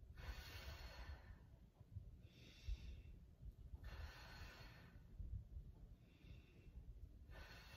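A woman's faint, audible breathing while bracing her core in a floor exercise: about five breaths, with longer blown-out exhales alternating with shorter breaths in between.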